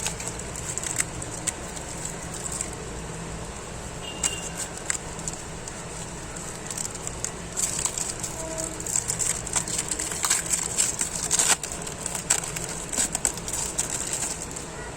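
Foil trading-card packet being torn open and crinkled, with the cards handled: irregular crackles and sharp clicks, busiest in the second half, over a steady low hum.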